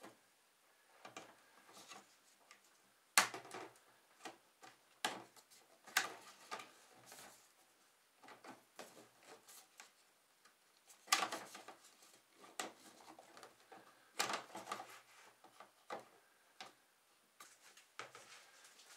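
Hard plastic knocks and clicks as the twin-duct rear adapter with its corrugated hoses is pushed onto the back of a portable air conditioner and handled on a wooden bench. The knocks are irregular, a handful of them sharper, with rustling of the plastic hose between them.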